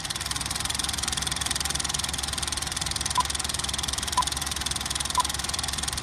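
Film projector running: a rapid, steady mechanical clatter of the film transport. From about three seconds in, a short beep sounds once a second, a film countdown leader's beep.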